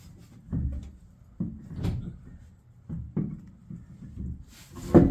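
A series of about six irregular knocks and clunks, the loudest near the end.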